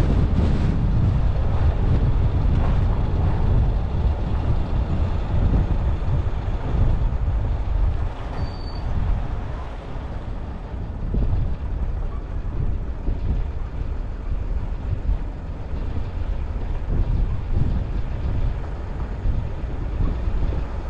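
A vehicle driving along, giving a steady noisy rumble of road and wind noise that eases a little about eight seconds in.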